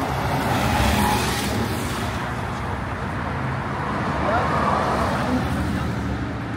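A Porsche 911's flat-six engine running as the car drives past, loudest about a second in, over a steady wash of engine and tyre noise.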